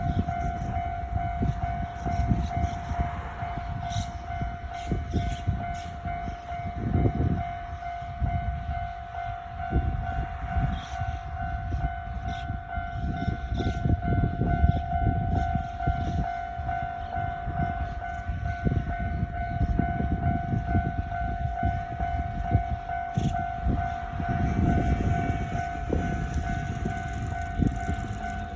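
A Japanese level-crossing warning alarm rings steadily while a Kyoto Municipal Subway 20 series train passes, its rumble rising and falling with sharp clicks of wheels over the track.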